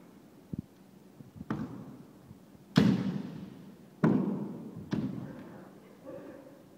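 Kendo sparring: stamping footwork on a wooden hall floor and bamboo shinai strikes, five sharp impacts that echo in the hall, the loudest two about three and four seconds in.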